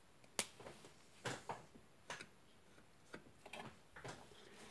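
Faint, irregular light clicks and taps, about seven of them, from small hard parts being handled on a desk.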